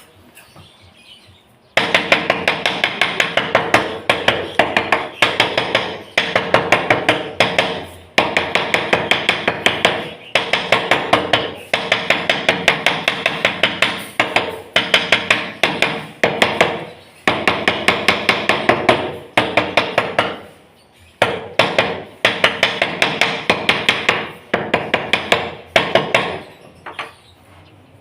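Hammering in quick runs of several blows a second, broken by short pauses, as part of ceramic tiling work.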